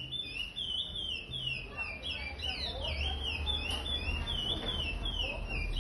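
Curió (chestnut-bellied seed finch) singing the Paracambi song type: a continuous run of rapid, repeated whistled notes that sweep down and back up, a few per second, over a low rumble.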